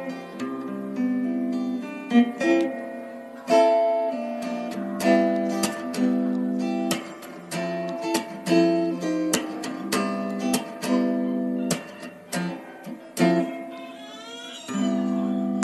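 Background music: guitar playing a mix of plucked notes and strums.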